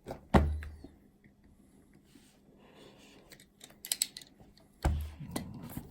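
Cardboard watch box being handled and opened by hand: scattered clicks, taps and rustling, with a sharp knock about a third of a second in, a quick run of clicks around four seconds, and another thud near five seconds.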